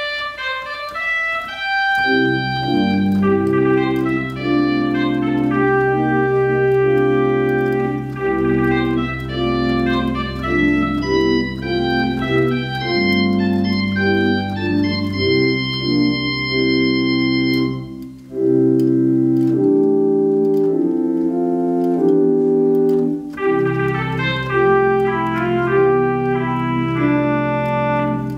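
Organ music: slow sustained chords over held bass notes, the harmony shifting every second or two, with a brief drop between phrases about 18 seconds in.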